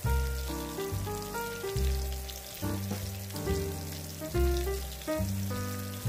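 Background music, with pitched notes and a bass line struck about once a second, over a steady crackling sizzle of food frying in hot oil.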